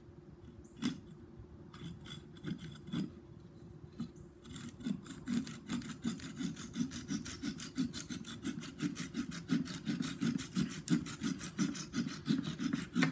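Small hand saw cutting off the protruding end of a wooden axe handle and its wedge, flush with the top of the axe head. A few slow starting strokes, then quick, even back-and-forth strokes from about four seconds in, stopping near the end.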